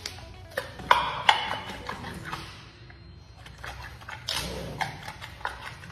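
Giant panda chewing and crunching a bamboo shoot: irregular crisp cracks and snaps, the sharpest two about a second in.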